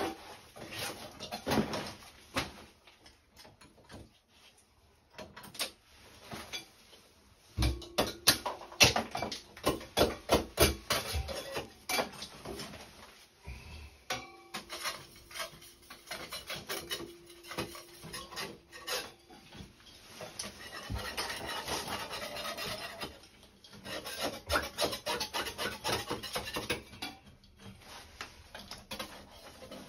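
Hand tools scraping, rubbing and knocking at a shower mixer valve set into a tiled wall as the mixer is worked loose. There are runs of sharp clicks and knocks, a drawn-out squeak midway, and a stretch of steady scraping later on.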